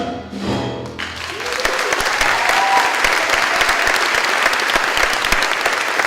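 The last held chord of a song fades out within the first second, then a theatre audience breaks into applause that carries on steadily.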